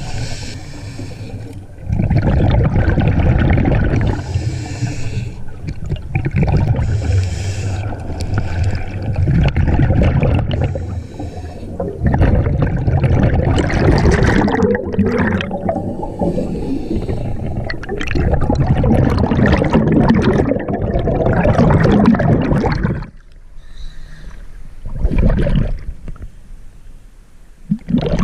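Underwater sound of a scuba diver: air bubbling and rushing through the regulator in waves every few seconds, with a high hiss in some stretches. It grows quieter and more broken about three quarters of the way through.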